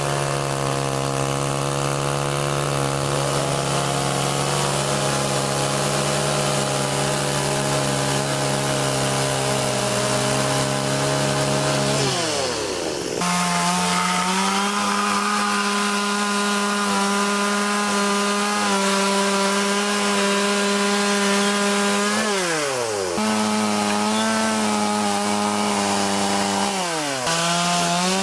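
Chainsaw running at high revs, carving into wood. Its pitch drops steeply and then climbs back up three times, about twelve, twenty-two and twenty-seven seconds in, as the throttle is eased off and opened again.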